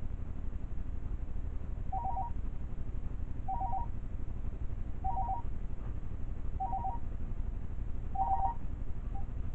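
Electronic beeping: five short bursts of quick two-tone pips, evenly spaced about a second and a half apart, starting about two seconds in, over a low steady rumble.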